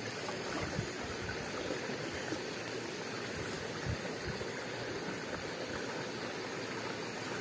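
Water running steadily through a small shallow channel at the edge of a rice paddy, an even rushing trickle.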